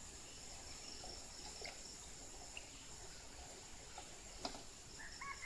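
Steady high-pitched insect drone, with a single sharp click about four and a half seconds in and a short animal call starting near the end.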